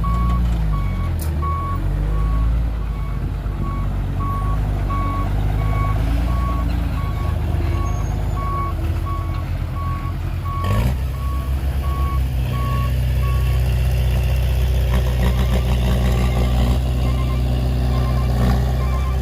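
A heavy construction vehicle's reversing alarm beeping steadily, about one and a half beeps a second, over a running diesel engine; the beeping stops about two thirds of the way through and the engine grows louder. A single clank comes a little before the beeping stops.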